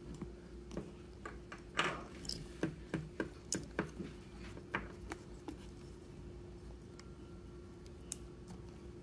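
Plastic puzzle pieces clicking and tapping as they are handled and pressed together, a quick run of sharp clicks in the first half, then only a few faint ticks.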